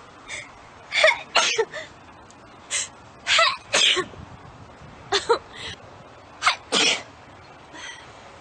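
A person sneezing over and over in a fit of short, quick sneezes, often two in quick succession, about a dozen in all.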